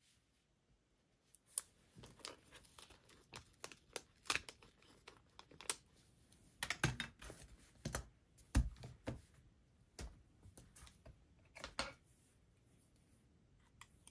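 Paper planner pages and sticker sheets being handled on a desk: scattered rustles, light taps and clicks, with one duller thump about halfway through.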